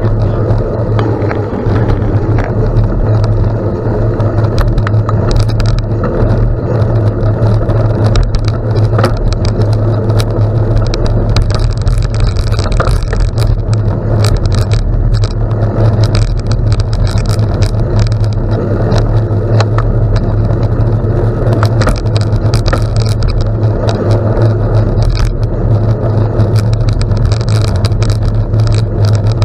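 Steady wind rumble on the microphone of a bicycle riding on gravel, with many small ticks and rattles from the tyres and bike running over the loose stones.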